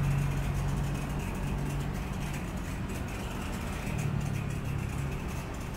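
Steady low hum over background noise, with no speech.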